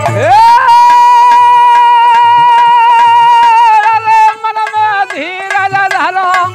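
Male folk bhajan singing: the lead voice sweeps up into a long high held note for about four seconds, then sings a shorter wavering phrase. Dholak strokes play underneath.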